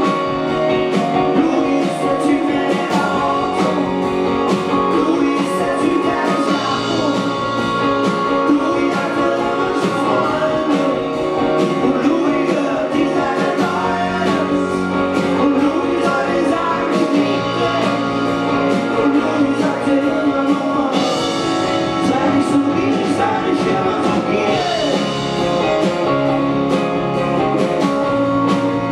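Indie rock band playing a song: two electric guitars, bass, drums and keyboard, with a man singing lead.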